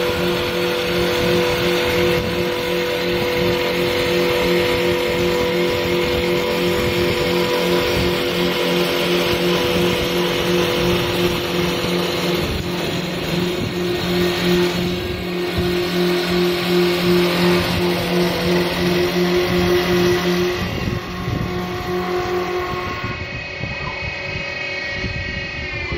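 Two-spindle CNC wood-turning lathe cutting two wooden spindles at once: a noisy cutting sound over a steady machine hum. About twenty seconds in, the cutting and the hum stop, leaving the machine running more quietly with a rising whine near the end.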